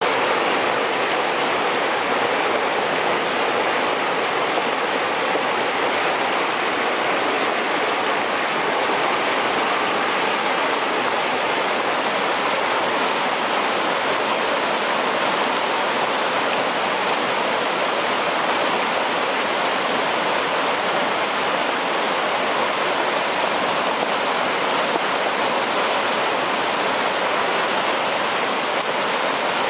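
Flash-flood water rushing over a rocky streambed: a loud, steady rush with no break.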